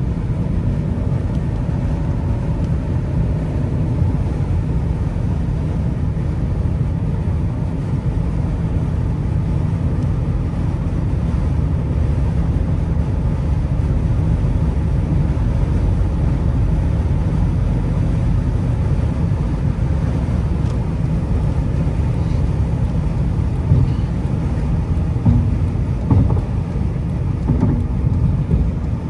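2004 Lexus LS430's 4.3-litre 3UZ-FE V8 running steadily under way, a continuous low rumble of engine and road noise, with a few brief thumps near the end.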